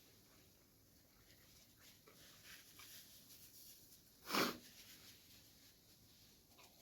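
Quiet mouth sounds of someone eating noodles, with faint small clicks, then one short, loud, breathy intake of air about four and a half seconds in.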